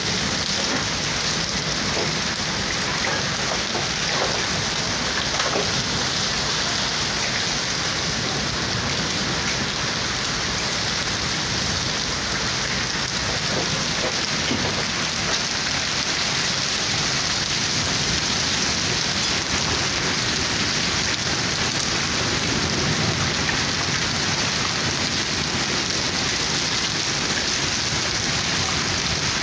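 Heavy rain falling steadily, an even hiss with a few sharper drop impacts, and a low rumble of thunder about two-thirds of the way through.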